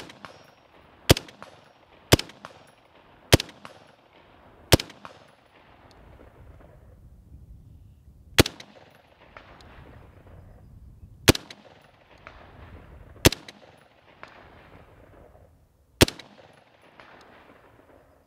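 Heckler & Koch G36 rifle in 5.56×45 mm NATO fired in slow, aimed single shots, about nine at uneven intervals of one to nearly four seconds, each trailing off in a long echo.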